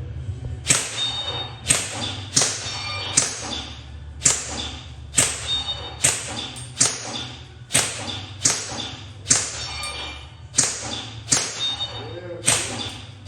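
Airsoft gun fired shot by shot, about fifteen sharp cracks a little under a second apart, each with a brief ring after it.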